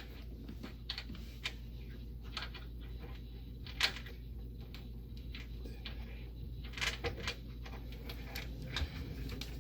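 Ratchet wrench driving a lag bolt into a kitchen cabinet frame, with irregular light clicks and taps of the ratchet and hardware and one sharper click about four seconds in, over a faint steady hum.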